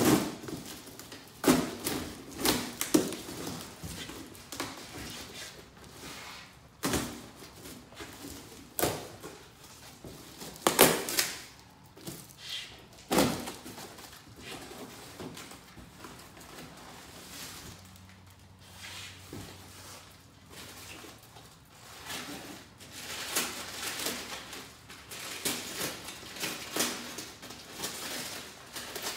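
A taped cardboard box being cut and pulled open by hand: tape slit and torn, cardboard flaps scraping and bending, and the contents rustling. The sound comes in irregular spells of scraping and crackling, with a few sharper knocks.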